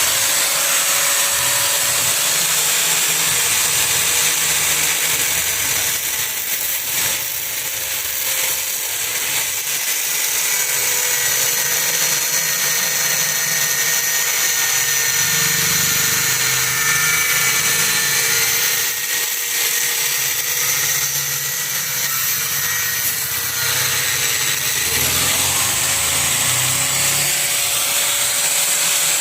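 Electric power tool cutting open the plastic case of a Sukam 135 Ah lead-acid inverter battery to reach a cell. The motor runs continuously, its pitch sagging slightly under load through the middle and picking back up near the end.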